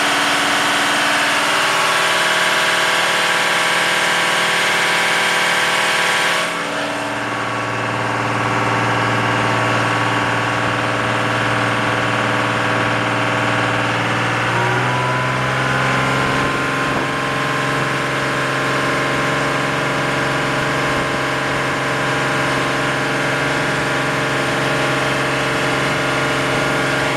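A 30-foot Shintaku Zosen boat's engine idling steadily. The tone changes abruptly about six seconds in, and about halfway through the engine speed steps up slightly and holds.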